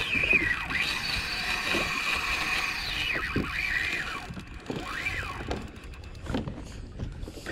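Spinning reel drag squealing as a hooked bonito pulls line off, the whine rising and falling in pitch with the fish's surges.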